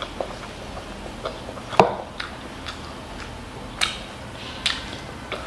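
A wooden spoon and plastic training chopsticks clicking and tapping on a wooden board as they cut into a fried egg on fried rice. The taps are light and irregular, with one sharper knock about two seconds in.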